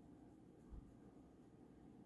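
Near silence: room tone, with one faint low thump about three quarters of a second in.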